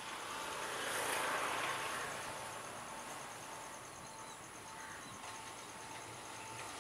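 Insects chirping steadily over the faint low hum of an approaching Sri Lanka Railways Class S12 diesel multiple unit.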